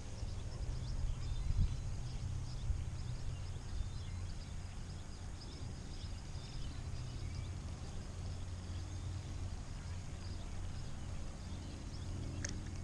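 Wind rumbling on the microphone, with small birds chirping faintly throughout and one sharper chirp near the end.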